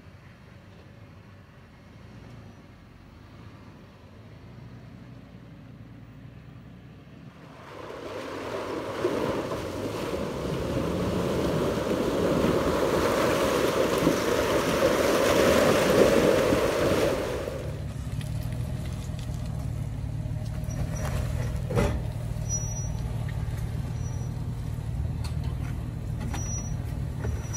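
Toyota 4Runner engine running at crawling speed off-road. For about ten seconds in the middle a loud rushing, hissing noise covers it, then the engine's steady low rumble returns, with one sharp knock near the end.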